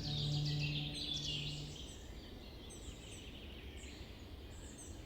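Many birds chirping and twittering together, thinning out after about two seconds to scattered high calls, over a low steady background rumble. A held low drone note from the soundtrack music stops about two seconds in.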